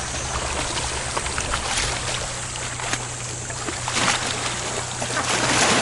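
Seawater sloshing around someone wading at the shore, with a few short splashes about four seconds in and near the end, over a steady low drone.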